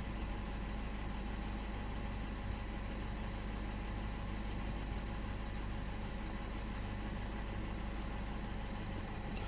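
BMW 116i (F20) four-cylinder petrol engine idling steadily.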